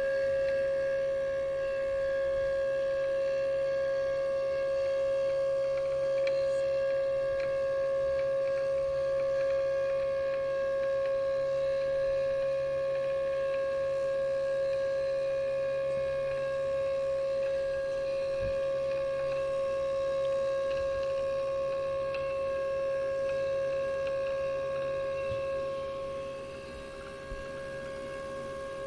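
CNC machine's X-axis ballscrew drive running at a steady speed: a steady high whine with faint scattered ticks and crackles over it, the kind of rattling, grinding noise the owner hears from the X ballscrew. It drops a little in level near the end.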